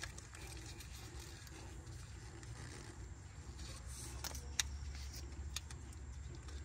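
Low steady hum of background noise with a few faint clicks and taps, most of them in the second half, as brake pad hardware is handled and greased.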